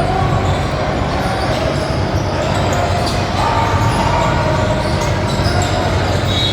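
Basketball bouncing on a gym court, with steady background voices.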